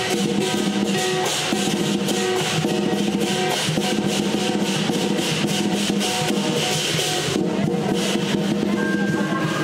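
Chinese lion dance percussion: a big drum beaten in fast, dense rolls, with clashing cymbals and a gong ringing over it.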